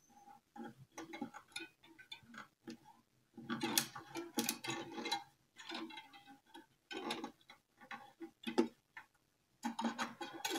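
Violin tuning pegs being turned and pressed into the pegbox as new strings are wound on: irregular clusters of small clicks of the pegs and strings, with a faint pitched ring now and then.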